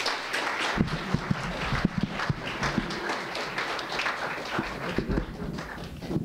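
Audience applauding, a dense spatter of hand claps that thins out near the end.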